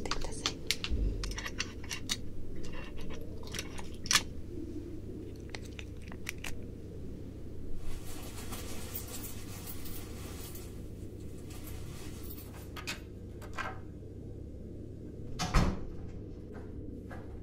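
Hospital-room ambience: scattered small clicks and taps of objects being handled, a rustling hiss lasting a couple of seconds about eight seconds in, and one thump near the end, all over a steady low hum.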